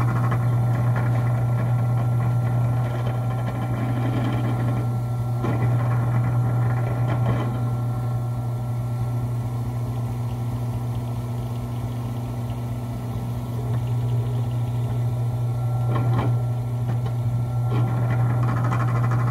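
Benchtop drill press motor running steadily with a low hum as the bit bores a 5/16-inch hole through a soft polyurethane plow cutting edge, with a few brief scraping sounds from the bit in the material.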